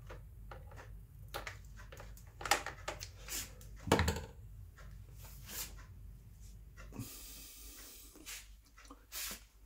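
Scattered light clicks and knocks from handling plastic reverse-osmosis tubing and fittings, one with a dull thump about four seconds in, and a brief rustling hiss about seven seconds in, over a steady low hum.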